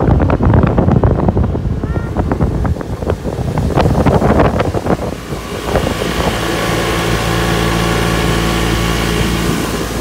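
Motorboat engine running under way, with wind buffeting the microphone and the rush of the churned-up wake. About halfway through the wind buffeting drops away and the engine's steady hum comes through clearly.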